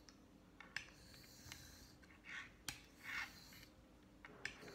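Straight razor honed on a wet yellow Belgian coticule stone: faint, soft scraping strokes of the blade across the stone, with a few light clicks as the razor is turned over on its spine between strokes.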